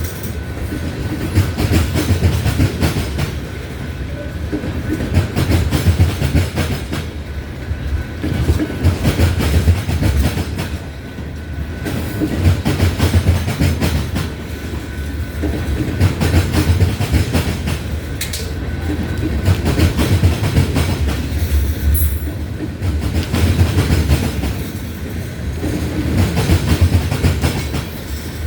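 Loaded freight train of ethanol tank cars rolling past: a steady heavy rumble with wheels clacking over rail joints, swelling and fading every couple of seconds. A brief high wheel squeak comes about three-quarters of the way through.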